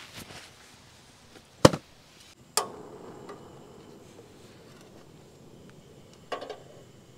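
Three sharp knocks: the loudest about a second and a half in, a second one a second later with a short ringing tail, and a softer one near the end.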